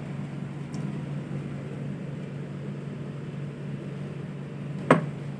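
Steady low machine hum with an even hiss, and one sharp knock near the end.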